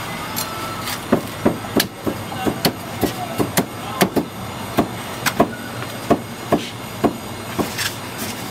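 Meat cleaver chopping through roast poultry onto a thick round wooden chopping block: a run of quick, sharp chops, about three a second, starting about a second in.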